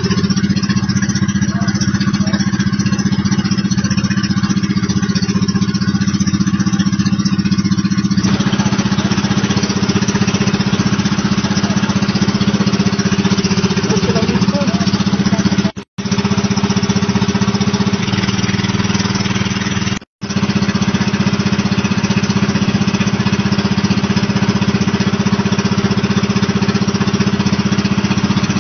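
Motor of a bangka (outrigger boat) running steadily under way with a low, even drone. It cuts out abruptly for an instant twice, about two-thirds of the way through.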